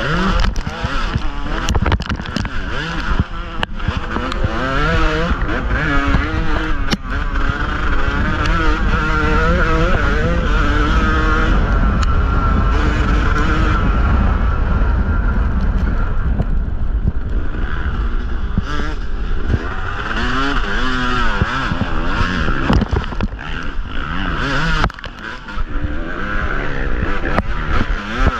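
Yamaha YZ250's 250 cc single-cylinder two-stroke engine revving up and down under hard riding, heard onboard, with knocks and rattles as the bike crosses rough ground. The throttle closes briefly about 25 seconds in before the engine pulls again.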